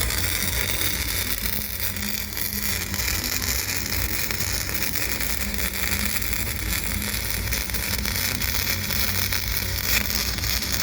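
MIG welding arc from a VOL-MIG160LED inverter welder, crackling and hissing steadily as wire is fed with the trigger latched in 4-stroke (4T) mode. A low hum runs underneath, and there is a single sharper crack about ten seconds in.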